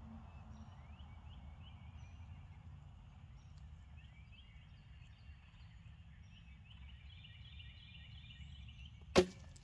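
Longbow shot with a wood arrow: the sharp thump of the string released about nine seconds in, followed a fraction of a second later by a fainter knock. Before the shot, only faint high chirps over low background hum.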